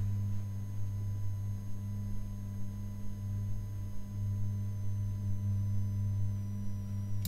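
Steady low background hum picked up by the microphone, with no other sound.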